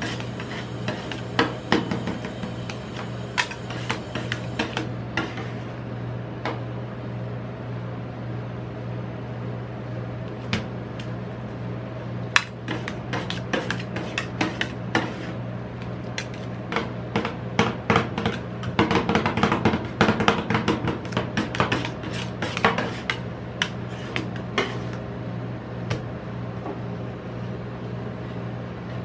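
Metal spatulas chopping, tapping and scraping on the stainless-steel cold plate of a rolled ice cream machine as the ice cream mixture is mashed. Sharp clicks come in quick runs, busiest past the middle, thinning to quieter scraping near the end, over a steady low hum.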